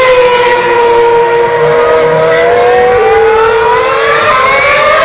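Formula 1 car engines (2010-era 2.4-litre V8s) running on track, a high, steady whine whose pitch glides slowly. Two engines are heard at once: one falls in pitch over the first few seconds while another rises through the second half.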